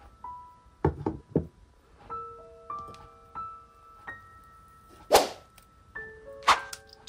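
Light background music of sparse, ringing mallet-like notes. A few dull thunks come about a second in, and two short, loud rustling bursts come near the end.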